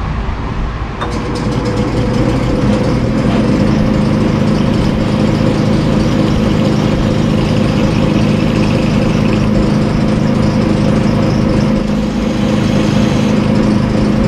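Atlas metal lathe starting about a second in and then running steadily, its motor and drive humming while a boring tool cuts into a spinning UHMW polyethylene blank.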